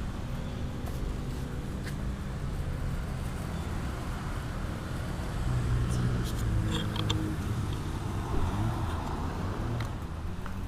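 Road vehicle engine running steadily with traffic noise, a low hum that swells a little past the middle.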